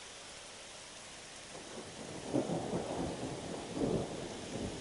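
Thunder over a steady hiss: a low rumble builds about a second and a half in and swells to two loud peaks, one just past the middle and one near the end, still rolling on as it closes.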